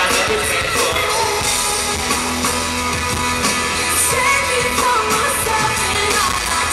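Live pop band music: a lead vocal sung over drums, bass and keyboards, with a steady beat.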